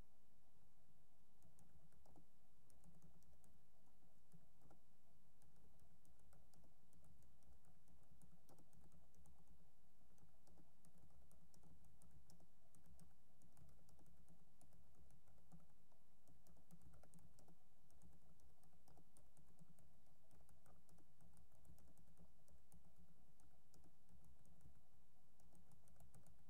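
Typing on a computer keyboard: a quick, irregular run of faint key clicks, over a steady low hum.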